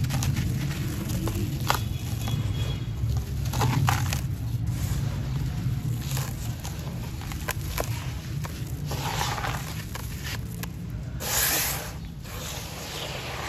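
Wet sand-and-cement chunks being crushed and crumbled by hand in a tub of muddy water: gritty crunching and scraping with many small crackles, and a louder rush of grit about eleven seconds in. A steady low hum runs underneath.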